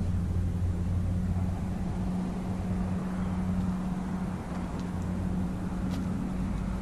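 Wind rumbling on the microphone over a steady low machine hum, with a few faint clicks near the end.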